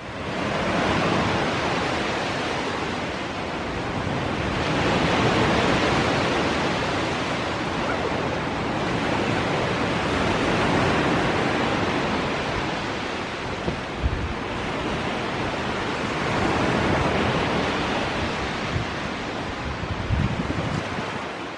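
Steady outdoor rushing noise that swells and eases in slow waves every five seconds or so, with a faint knock or two partway through.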